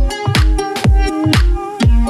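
Background electronic dance music with a steady kick drum about twice a second under sustained synth notes.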